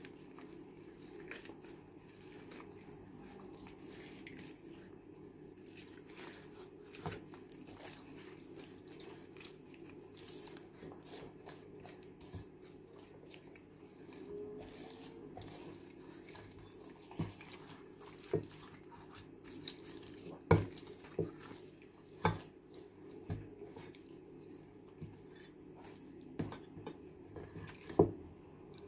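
Hands rubbing oil and seasoning into the skin of a raw turkey crown: soft wet squelching and rubbing, broken by a few sharper smacks, the loudest in the second half.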